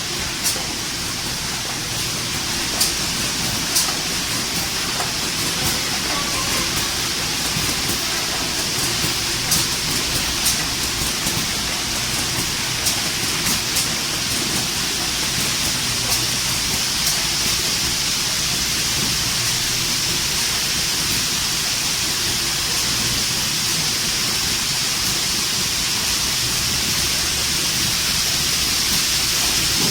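Carton-box packing machine for detergent powder running: a steady hiss with frequent sharp clicks through the first half.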